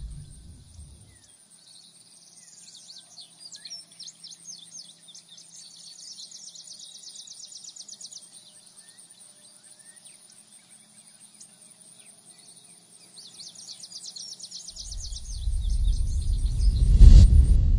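Birds chirping and twittering in quick high trills as a nature soundscape. Near the end a deep low rumble swells up and peaks just before the end, a cinematic bass hit.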